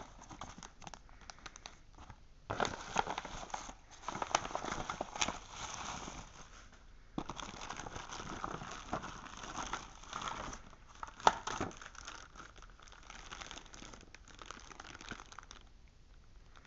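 Clear plastic packaging of makeup brushes crinkling and crackling as it is handled, in irregular stretches of small crackles with one sharper snap about two-thirds of the way through.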